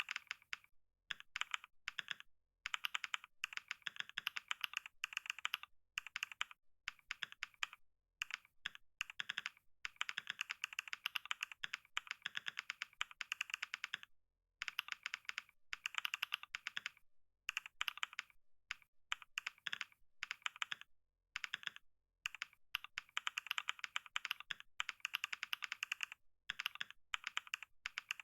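Computer keyboard typing fast in runs of rapid keystrokes, several clicks a second, broken by brief pauses of a fraction of a second.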